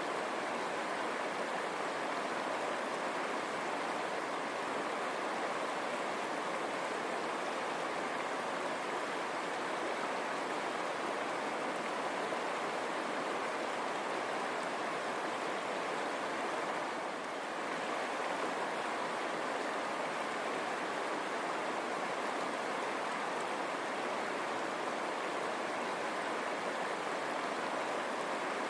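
River water rushing and burbling over stones, a steady, unbroken flow.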